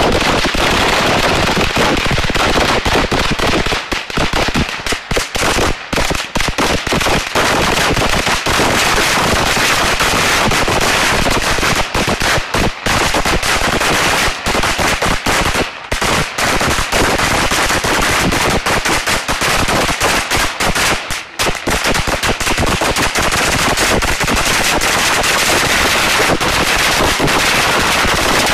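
A long string of firecrackers going off in a rapid, near-continuous run of loud bangs, with a few brief lulls.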